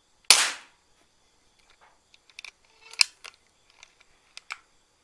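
A PCP air rifle shot: one loud sharp crack with a short tail about a third of a second in. A second, shorter sharp crack comes about three seconds in, with scattered light clicks and taps around it.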